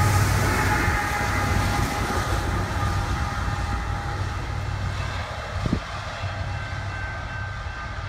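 Trailing diesel locomotive of a Canadian National oil train passing and moving away: engine rumble and rail noise fading steadily, with a few steady high tones over them and a single sharp knock about two-thirds of the way through.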